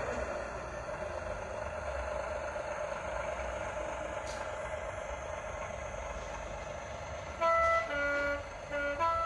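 Model railcar's Zimo sound decoder playing a railbus sound file through its small on-board speaker: the diesel railbus engine running steadily as the model drives away, growing slightly fainter. Near the end the horn sounds several short two-tone blasts, high and low notes.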